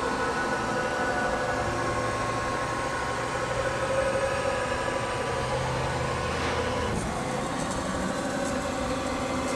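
The axis drives of a 1998 Republic-Lagun KMC 717 CNC knee mill run the table through its homing cycle, making a steady whine of several tones. The sound changes about seven seconds in, when a faint high tone joins.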